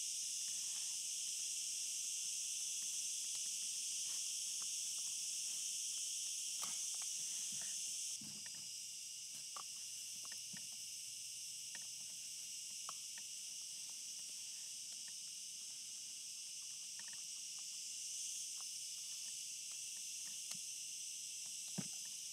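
Faint steady high-pitched chirring of insects, a little quieter after about eight seconds in, with a few soft clicks from wires being handled into a plastic connector block.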